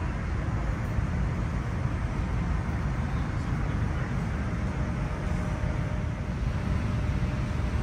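Steady low rumble and hiss of a Boeing 787-9 airliner's cabin.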